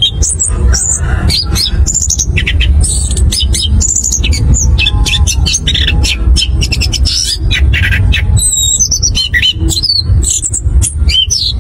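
Orange-headed thrush (anis kembang) singing a fast, continuous rolling song of varied whistled and squeaky notes that slide up and down, with brief pauses, over a steady low rumble.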